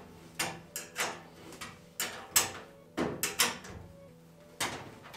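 Irregular sharp metallic clicks and knocks as a bolt and hand tools are worked against the steel handle mount of a Vulcan heavy-duty welding cabinet; the top handle bolt is not threading in.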